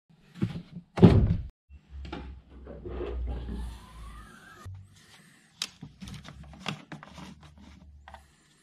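A loud thunk about a second in, followed by scattered clicks, knocks and rubbing as hands work around a car's open engine bay at the brake fluid reservoir, over an intermittent low hum.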